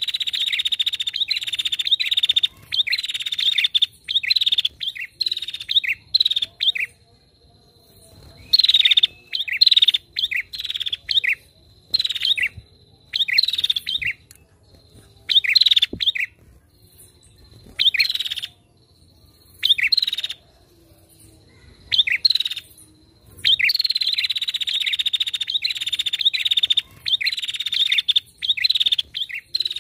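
Female prinia (prenjak) calling in rapid bouts of sharp, repeated chirps, each bout lasting one to three seconds with short pauses between. A faint, steady high tone sounds under the gaps.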